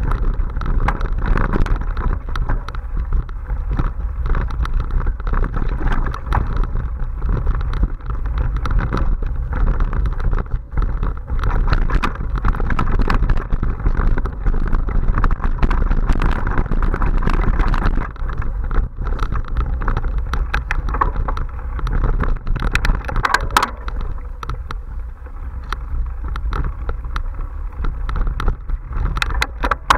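Mountain bike ridden fast over a dirt forest trail: steady wind buffeting on the microphone and tyre rumble, with frequent rattles and knocks as the bike hits bumps.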